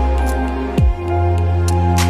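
Background music: soft sustained tones over a deep bass hit that drops in pitch a little under a second in.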